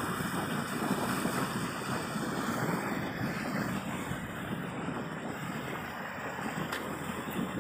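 Steady rushing noise of wind on the microphone over flowing river water.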